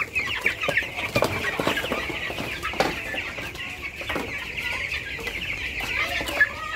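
A crowd of 13-day-old broiler chicks peeping continuously and densely, packed together in a plastic crate. A few sharp knocks come as the crate is handled and set down.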